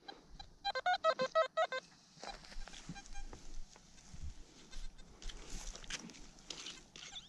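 A metal detector signalling a target with a quick run of short, evenly spaced beeps, then a shovel digging into dry, grass-covered soil with scraping and rustling.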